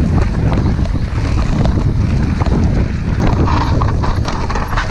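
Mountain bike riding fast over a rough dirt trail: wind buffeting the microphone, with a steady run of rattles and knocks from the bike on the bumps.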